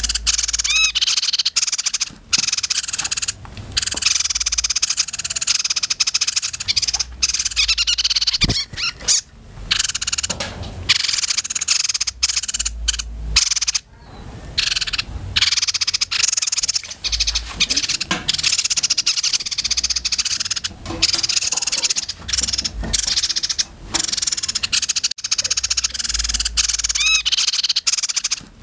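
Young caged songbirds singing in rapid, harsh, high-pitched chattering trills, almost without pause. The voice is the fierce kind that keepers prize for tutoring other songbirds.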